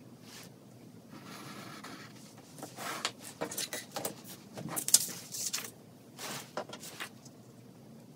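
Pencil scratching along a ruler on paper, then paper pattern pieces rustling and sliding on a wooden tabletop, with quick irregular taps and clicks as the ruler and paper are handled; the sharpest tap comes about five seconds in.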